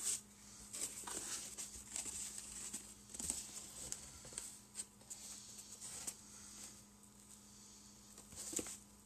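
Cardboard box and foam packing handled by hand: scattered soft rustles, scrapes and light knocks as a box is lifted out and its lid and foam insert opened.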